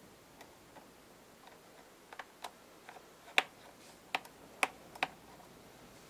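Scattered small, sharp clicks and taps, about a dozen at irregular intervals, loudest about halfway through: a Phillips #00 screwdriver and the tiny bottom-case screws of a MacBook Pro being handled.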